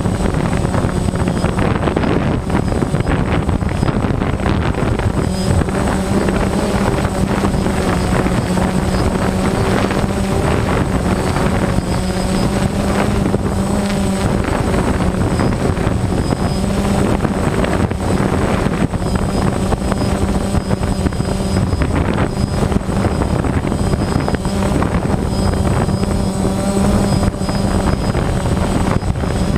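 Strong gale-force wind blowing hard and continuously, with a low hum that fades out and returns every few seconds.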